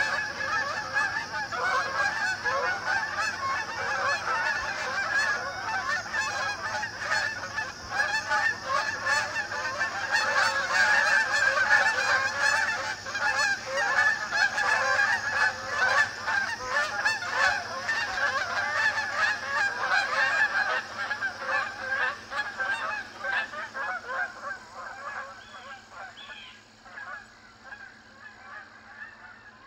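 Many Canada geese honking at once, their calls overlapping in a continuous chorus that thins out and fades over the last several seconds.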